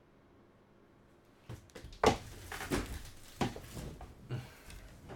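Handling of a trading card box and its packaging: near silence, then from about a second and a half in, irregular rustling, clicks and knocks, the loudest a sharp knock about two seconds in.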